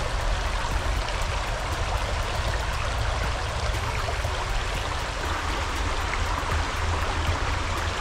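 Shallow rocky creek babbling and trickling over stones, a steady water sound with a low rumble underneath.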